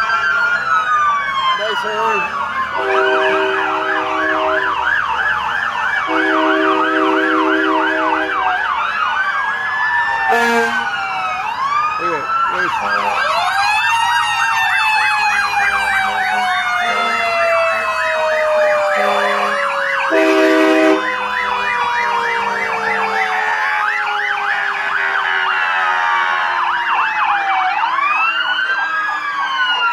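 Several fire truck sirens wailing and yelping at once, overlapping as the trucks pass, cut through by long steady horn blasts a few seconds in, around seven seconds in and about twenty seconds in. Through the second half one siren winds slowly down in pitch.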